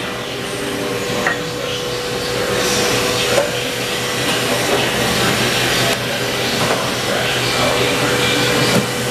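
Steady motor and fan hum of a powered-up Haas VF-E CNC vertical machining center, with a faint constant tone and a few light clicks.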